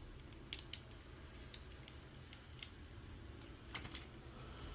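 Faint, scattered light clicks of a small Phillips screwdriver being fitted against the tiny screw of a plastic key fob, a few irregular taps, two close together near the end.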